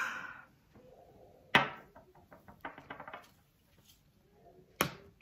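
Two sharp knocks with a run of light clicks between them: small hard objects, such as makeup containers, being picked up, handled and set down on a tabletop.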